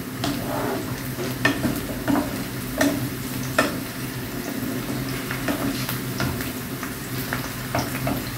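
Sliced onions sizzling in hot oil in a nonstick frying pan while a spatula stirs them, scraping and tapping against the pan at irregular moments every second or so.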